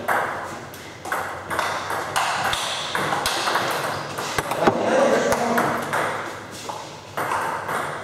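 Table tennis rally: the ball clicking sharply off the rubber paddles and bouncing on the table in quick succession, echoing in the hall.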